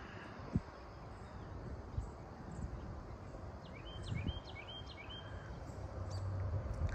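Dawn farmland ambience: a low, uneven rumble with a few soft thumps, and a bird calling four quick upswept notes about halfway through.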